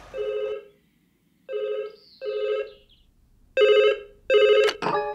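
Telephone ringing in a double-ring pattern, a pair of short rings about every two seconds, the last pair louder. It rings out unanswered.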